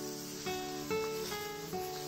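Background music: an acoustic guitar picking a slow melody, one plucked note after another.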